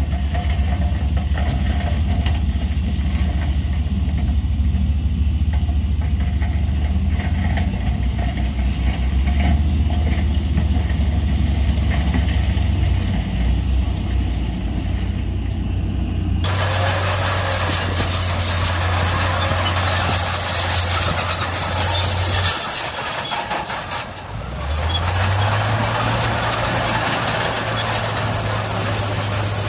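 Heavy diesel earthmoving machinery running with a low, steady engine drone. Just over halfway through, a loud, harsh grinding and squealing noise cuts in abruptly. Near the end the engine note drops away briefly, then rises again.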